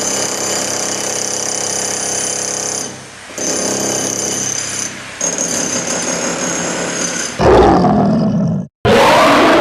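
Weird creature noises: a steady, buzzy humming tone that breaks off briefly twice. Then, about seven seconds in, a loud roar-like growl sliding in pitch stops abruptly, and a second one starts right after.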